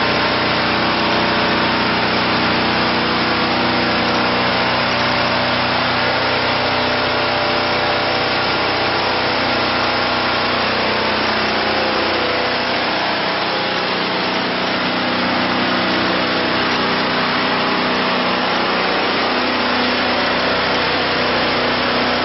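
Diesel engine of an MJ700D horizontal band sawmill running steadily, driving the band saw through a log. The sound eases slightly for a few seconds past the middle.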